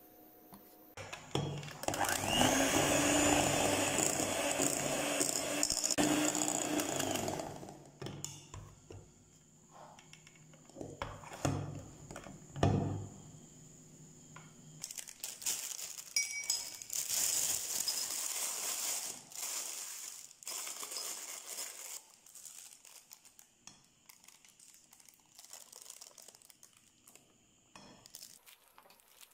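Electric hand mixer beating buttercream in a bowl: it runs steadily for several seconds, stops, and runs again about halfway through. Softer, scattered scraping noises follow near the end.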